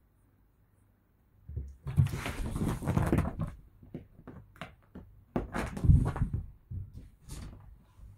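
Cat scrambling and jumping about on a sofa's back and cushions: irregular thumps and fabric rustling, starting about a second and a half in, densest for the next two seconds and loud again near six seconds.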